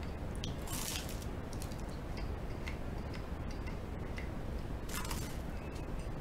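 Two bites into a slice of toast topped with tartar sauce and bacon and egg, one about a second in and one about five seconds in, over a steady low hum.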